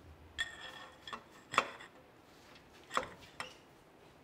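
Metal tool clinks as a breaker bar and 15 mm socket are fitted onto an oil drain plug: a ringing clink about half a second in, then a few sharp knocks, the loudest about a second and a half in.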